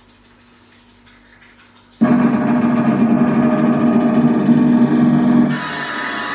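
Faint steady hum, then about two seconds in loud music starts abruptly: sustained layered tones that turn brighter and higher about five and a half seconds in.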